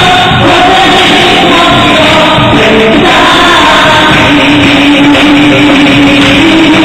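A group of worshippers singing together, very loud, with one long held note through the second half.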